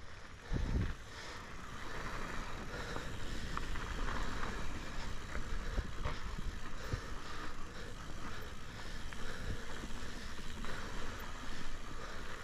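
Mountain bike riding downhill over loose sandy dirt: tyres rolling and scrubbing through the trail, with steady rattling and clicking from the bike and wind on the microphone. A single heavier thump comes a little under a second in.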